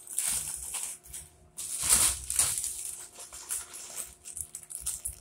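Plastic instant-noodle and snack packets crinkling and rustling in irregular bursts as they are handled and set down on a pile.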